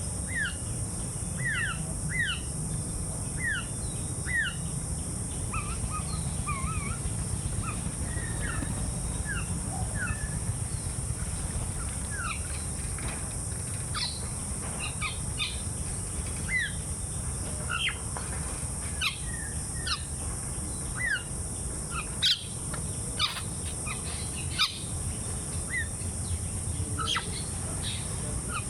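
Many birds chirping and calling in a busy chorus of short, quick notes, over a steady high-pitched drone of insects. A few louder, sharper notes stand out a little past the middle.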